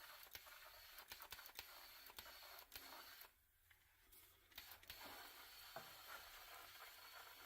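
Near silence: faint steady hiss with scattered faint clicks, dropping out briefly about three seconds in.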